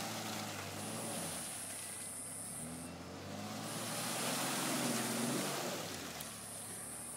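Ford Escape engine revving as the SUV tries to pull itself out of deep mud, its wheels churning in the ruts. The revs climb about two and a half seconds in, swell again near the middle, then ease off.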